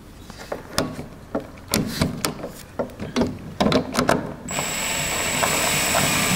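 A string of irregular metallic clicks and knocks as the pump's mounting bolts and tools are handled. Then, about four and a half seconds in, a DeWalt cordless drill/driver runs steadily with a high whine for about two seconds, driving in a jet-pump mounting bolt.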